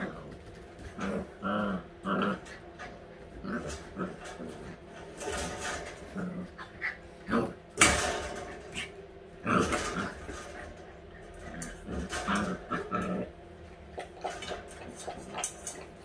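Eight-week-old Siberian husky puppies play-growling and yipping in short, scattered bursts as they wrestle, with a sharp clack about halfway through.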